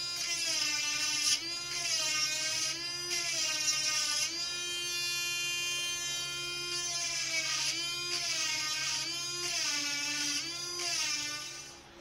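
Small electric grinder sharpening a chainsaw chain: a high motor whine whose pitch sags and recovers about every second and a half as the wheel bears on each tooth, with a few seconds of steady running in the middle.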